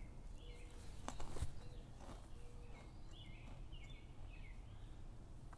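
A songbird chirping in short repeated notes, most of them in the second half, over a steady low rumble of outdoor background noise, with a couple of faint clicks about a second in.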